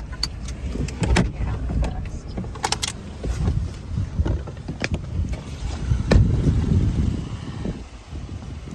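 Vauxhall Corsa being driven over rough ground, heard from inside the cabin: a low rumble with repeated knocks and rattles, swelling louder about six seconds in.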